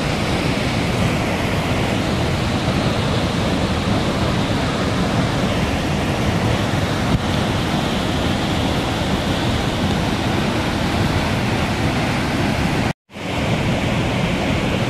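Floodwater pouring over a rocky waterfall: a steady, dense rush of water, broken by a brief cut to silence about thirteen seconds in.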